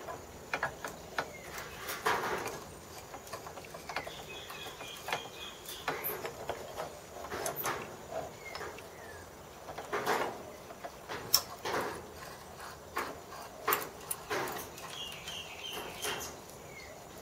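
Scattered clicks and light knocks of metal parts and locking-pliers clamps being handled and adjusted on a workbench. A bird chirps a quick run of short high notes twice in the background.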